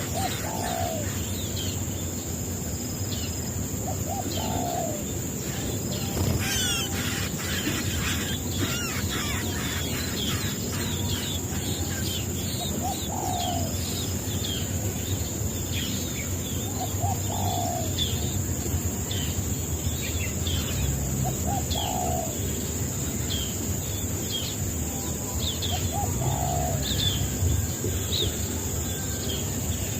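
Birds calling: a short, low, falling call repeated every four or five seconds over many scattered high chirps, with a steady high-pitched insect drone behind them.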